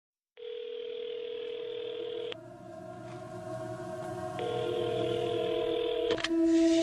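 Telephone ringback tone in a handset earpiece: two rings of about two seconds each with a two-second gap, over a low sustained music drone. A click comes near the end.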